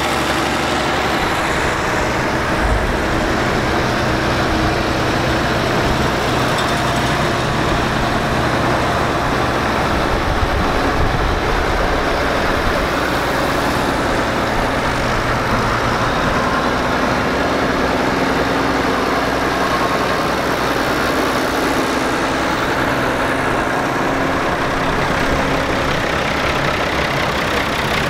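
Allis-Chalmers farm tractor engines running as the tractors drive slowly past, one after another, at a steady level; their engine tones shift as each tractor goes by.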